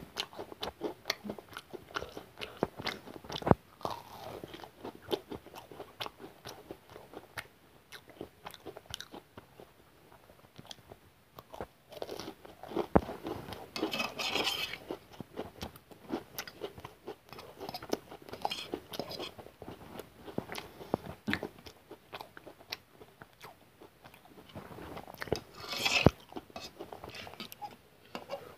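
Close-up biting and chewing of crispy fried chicken pakora: a steady run of small crunches and mouth clicks, with louder bursts of crunching about 13 and 26 seconds in.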